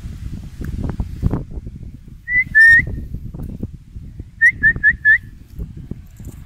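A person whistling close by: two longer whistled notes, then about a second and a half later four short rising notes in quick succession, all at about the same pitch. A low rumble runs underneath.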